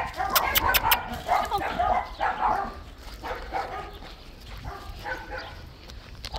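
A dog making a series of short vocal sounds, with a quick run of four sharp clicks in the first second.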